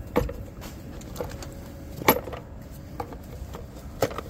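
A few separate clicks and knocks of hard plastic as a hand works a hose loose from a car's air cleaner housing, the loudest about two seconds in.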